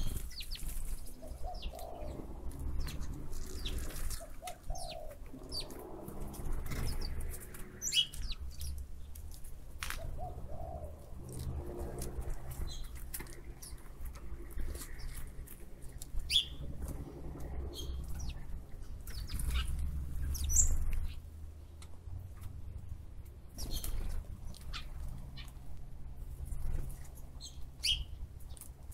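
Wild birds chirping and calling in short, scattered notes, over a steady low rumble of wind on the microphone.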